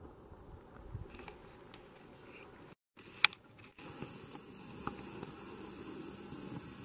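Quiet outdoor background with a few soft handling clicks. A brief dead gap is followed by one sharp, short click, the loudest sound here.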